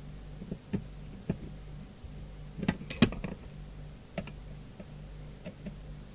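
Small clicks and knocks from a screwdriver and the radio's case as it is screwed back together, with a cluster of sharper knocks about three seconds in. A steady low hum runs underneath.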